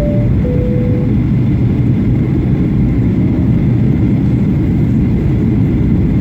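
Steady roar of engines and airflow inside a Boeing 737-800 cabin on approach. It opens with a two-tone high-low cabin chime in the first second.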